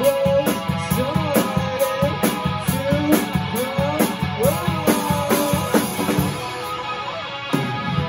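A live rock duo playing a song: an electric guitar through an amp over a drum kit, with a melody line that slides in pitch. The drums ease off about six seconds in and come back with a hard hit near the end.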